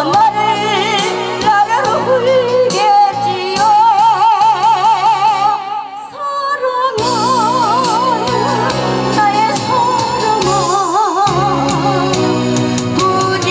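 A woman singing into a microphone with a wide vibrato over amplified backing music through a PA system. The accompaniment drops out briefly about halfway through, then comes back in under her voice.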